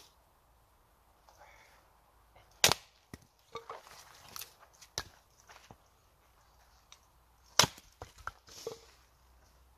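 Small hatchet splitting firewood on a wooden chopping block. Two loud, sharp chopping strikes come about five seconds apart, one about a third of the way in and one about three-quarters in. Smaller knocks and the clatter of split pieces fall between them.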